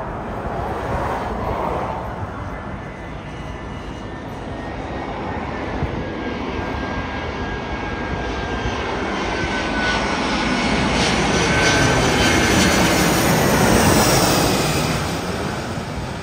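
Airbus A320-200 jet airliner on final approach flying low overhead: its engine noise builds to a peak about thirteen seconds in, with a whine that slowly falls in pitch, then fades as it passes.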